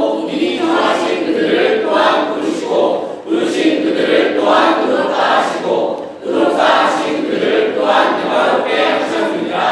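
A group of teenagers' voices in unison, reciting Romans 8 from memory in Korean, in phrases of about three seconds with short breaks between.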